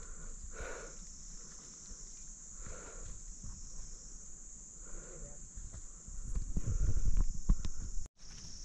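Steady high drone of insects, with goats bleating three times, about two seconds apart. Near the end a loud low rumble takes over for a couple of seconds, then the sound cuts out for an instant.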